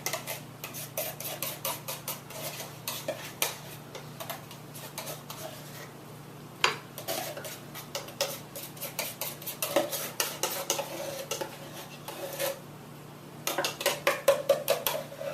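Canned chili being emptied into a glass baking dish: a metal utensil scraping and clinking irregularly against the can and dish, with some knocks ringing briefly.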